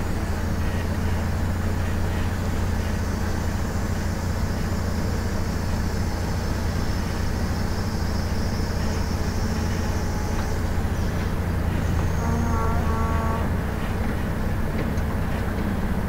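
Ford 555E backhoe's diesel engine running steadily, with a brief pitched whine broken into short pulses about twelve seconds in.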